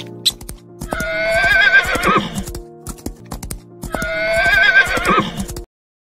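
Horse whinnying twice, each call long and quavering before dropping in pitch at the end, over background music. The sound cuts off suddenly near the end.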